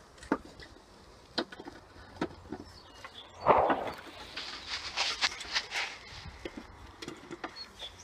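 Dry sticks and twigs being handled and laid on a pile: scattered knocks and snaps, a louder crackling rustle about three and a half seconds in, then a run of rustling and crackling.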